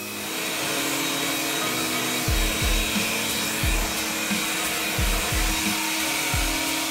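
Worx handheld blower running, building up over the first second into a steady rush of air blown over a washed RC car to dry it. Background music with a drum beat plays underneath.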